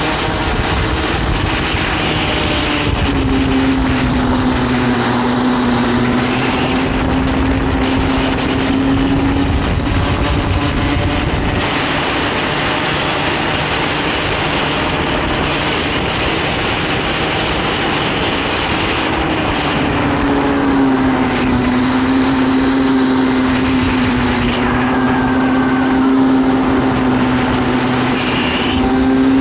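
Comer 50cc single-cylinder two-stroke kart engine running hard at racing speed, heard onboard. Its high pitch sags through the corners and climbs again on the straights, twice.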